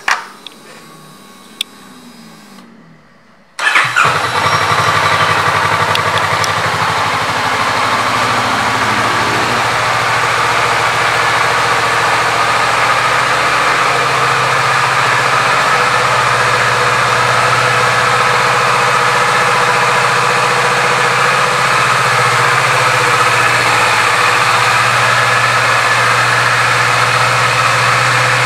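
Kawasaki Vulcan S motorcycle's 649 cc parallel-twin engine started after a couple of clicks: it catches about three and a half seconds in and settles into a steady idle.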